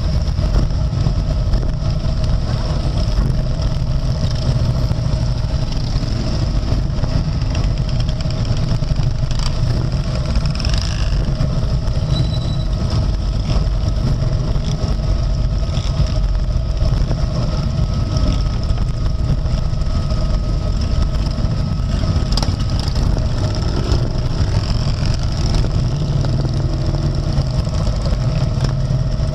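Harley-Davidson Road King's V-twin engine running steadily as it rides slowly in a large pack of motorcycles, a continuous low rumble from its own and the surrounding bikes' engines.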